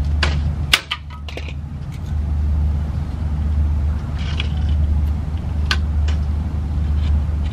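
Scattered sharp clicks and snaps from hand tools cutting and bending a minivan's roof molding strip, bunched in the first second and a half and again around four seconds in, over a steady low hum.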